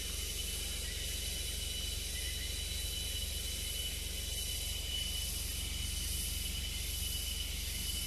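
Steady, high-pitched chorus of insects in rainforest undergrowth: an unbroken hiss-like buzz with two sustained high tones, over a low steady rumble.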